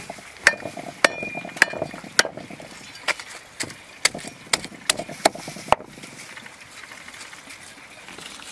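Kitchen clatter: irregular sharp knocks and clinks, about a dozen over the first six seconds, one with a short ringing tone, as cookware and utensils are handled. After that, only a steady faint hiss.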